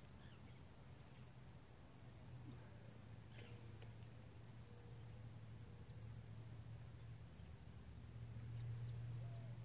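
Faint, steady high-pitched insect trilling, like crickets, over a low hum that swells a little near the end.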